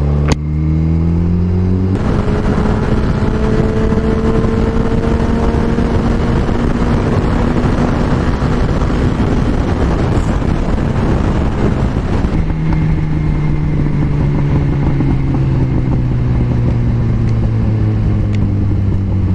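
Yamaha FZ1's inline-four engine accelerating hard to motorway speed, near 180 km/h, with its pitch rising under heavy wind noise on the microphone. About twelve seconds in the wind noise drops away and the engine note falls steadily as the bike slows down.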